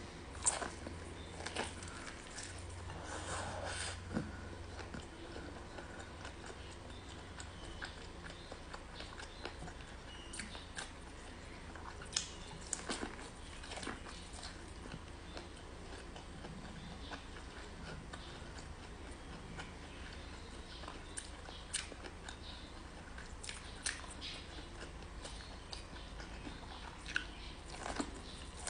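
Close-up biting and chewing of white and purple corn on the cob: kernels popping and crunching off the cob, then soft chewing. Sharp crunches come in scattered clusters, the busiest about a second in, around twelve to fourteen seconds in, and again near the end, over a faint low hum.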